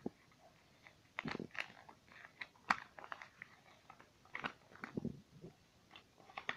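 Scattered plastic clicks and short rustles from a Yo-Kai Watch toy being handled, the sharpest click a little under three seconds in.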